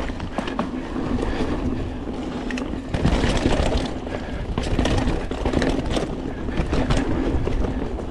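Mountain bike riding fast down a dirt trail: a steady rush of wind and tyre noise with frequent rattles and knocks from the bike over the bumps, rougher from about three seconds in.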